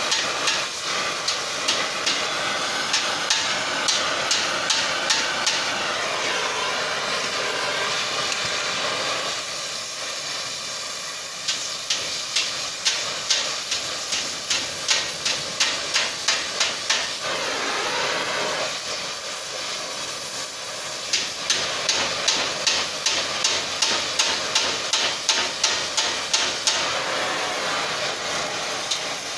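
Cutting torch hissing steadily while a hand hammer strikes the torch-heated steel wrapped collar in three runs of quick light blows, about two to three a second.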